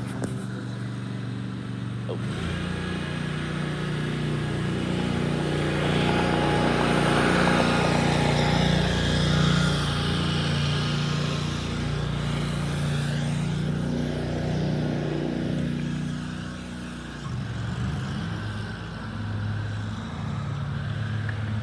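Motor vehicle engine idling steadily, with a louder rushing noise that swells and fades in the middle.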